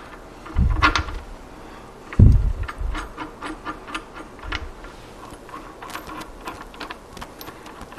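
Light metallic clicks and ticks as an MT2 collet is threaded onto the lathe's draw rod by hand at the spindle nose. A few dull thumps come in between, the loudest about two seconds in.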